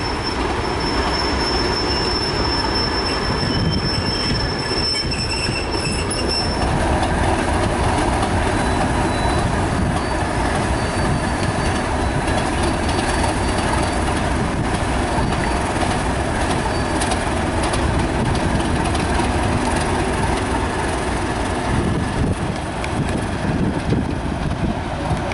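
Two Class 37 diesel locomotives, with English Electric V12 engines, running as they haul a train slowly past. A thin, high wheel squeal sounds over the rumble for the first six seconds or so, then fades.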